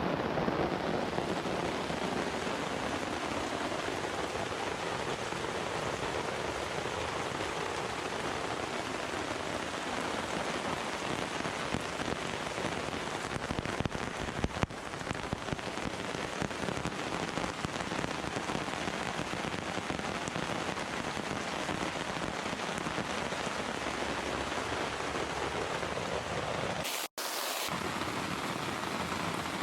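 Heavy rain falling steadily, a dense even patter that keeps up without letting off. It cuts out for an instant near the end.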